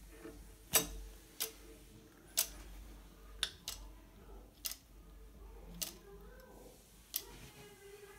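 Caulking gun clicking as construction adhesive is squeezed out onto wall studs: about eight sharp clicks, roughly one a second.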